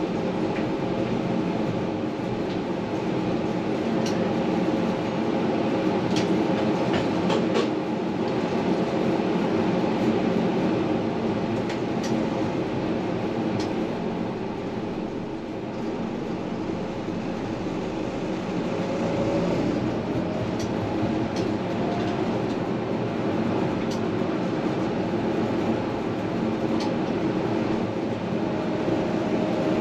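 Electric tram running on its rails, heard from inside at the front of the car: a steady rumble of wheels on track under the hum of the electric drive, with a few sharp clicks. The drive's tone rises in pitch about two-thirds of the way through and again near the end.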